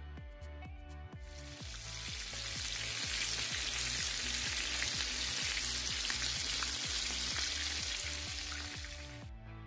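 Flour-coated zander pieces sizzling as they fry in hot oil in a pan. The sizzle starts about a second in and cuts off near the end.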